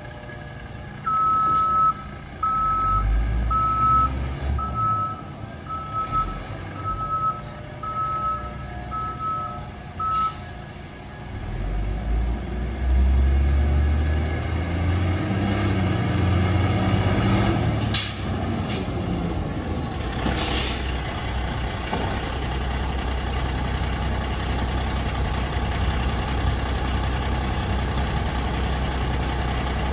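1996 Volvo WXLL garbage truck backing up, its reverse alarm beeping about once a second for the first ten seconds. The diesel engine then pulls harder and runs steadily as the truck drives up, with two short air hisses from the brakes just past the middle.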